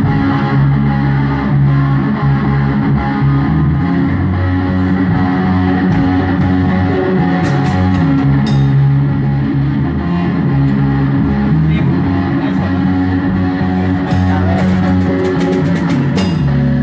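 Live rock band playing loudly during a sound check: guitar, bass guitar and drum kit.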